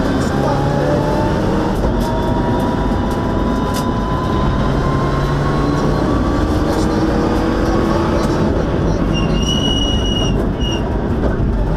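Rally car's engine and drivetrain at full speed, heard from inside the cabin: a loud, steady run with a whine that climbs slowly in pitch as the car accelerates. A brief high squeal comes about nine and a half seconds in.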